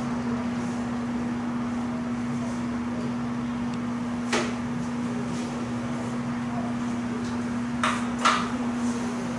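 Steady room tone with a constant low hum, broken by a single light knock about four seconds in and two more close together near the end.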